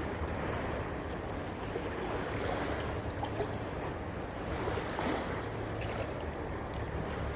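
Steady wind and water noise, with wind rumbling on the microphone and a few faint ticks.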